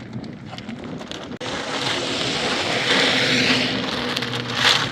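A vehicle engine running steadily under a loud rushing noise. The noise jumps up abruptly about one and a half seconds in and stays loud, with a couple of sharper hissing surges near the end.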